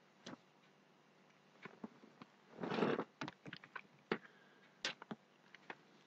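Faint, scattered light clicks and a brief rustle from a small USB sound card and its plug-ended audio lead being handled.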